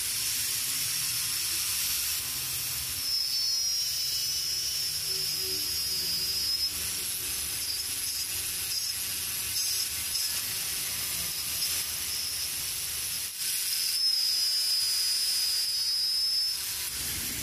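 Handheld angle grinder with a thin cutting disc running and cutting through a thin steel rod, a steady high hiss. A high whine rises over it twice, where the disc bites into the metal. The grinder starts as the sound begins and shuts off near the end.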